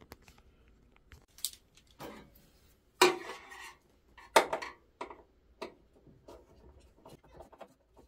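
Hands and a tool working screws out of a printer's plastic casing: scattered clicks, knocks and rattles of metal on plastic, the loudest about three seconds in and again about a second later, with lighter ticking near the end.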